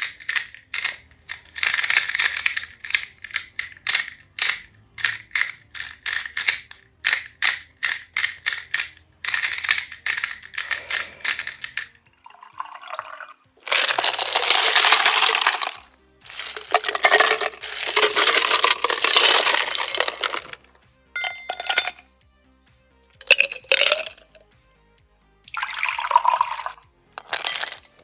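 Rubik's cube being twisted: a fast run of clicking turns, then several longer scraping rotations of a second or two each, then a few scattered clicks and short turns near the end.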